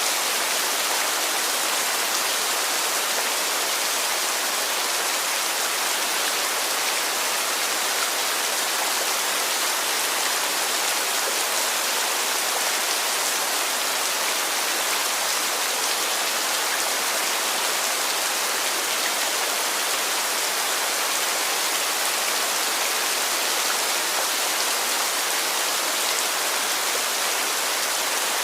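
Heavy rain falling steadily: a dense, even hiss that stays the same throughout, with little low rumble and no separate drops standing out.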